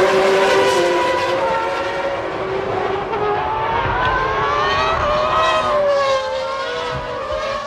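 Several Formula One cars' high-revving engines, their pitches rising and falling and crossing one another as the cars accelerate and pass.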